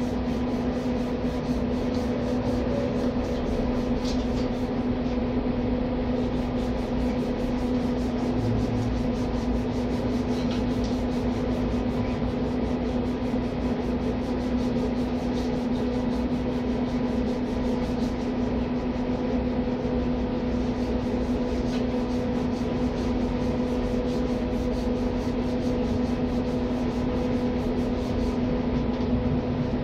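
Steady machine hum with a constant low tone and a noisy background; it does not change.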